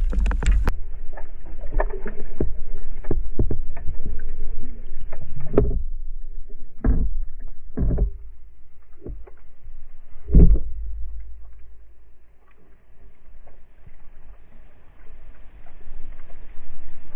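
Underwater action-camera audio: a muffled low rumble of water movement with many scattered knocks and clicks, one loud knock about ten seconds in, then thinning out and quieter.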